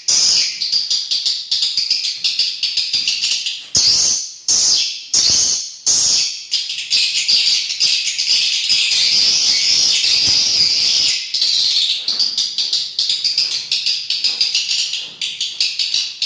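Swiftlets twittering inside a swiftlet house: a dense, continuous chatter of rapid, high chirps in pulses with short breaks.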